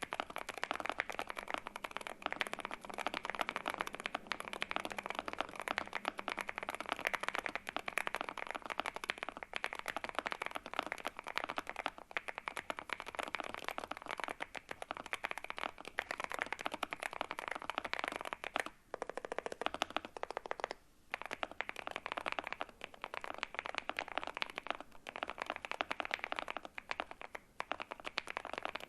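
Fast, continuous typing on a Monsgeek M1 V3 mechanical keyboard fitted with Akko Rosewood linear switches: a dense stream of keystroke clacks, with two brief pauses about two-thirds of the way in.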